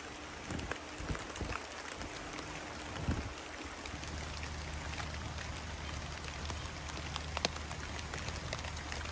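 Rain falling on the leaves and ferns of a forest floor: a steady hiss of rain with scattered sharp drip ticks. A low steady hum comes in about four seconds in.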